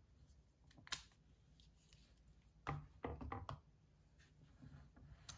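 Faint handling sounds: a sharp click about a second in, then a few light knocks around three seconds in as an Abu Garcia Zenon MG-LTX baitcasting reel is set down on a digital scale's steel weighing platform.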